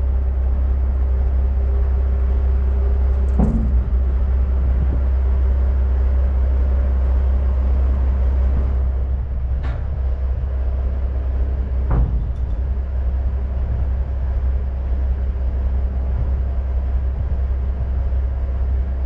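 Heavy truck and dump trailer running with a steady low rumble. Three sharp knocks sound over it, one a few seconds in and two more around the middle.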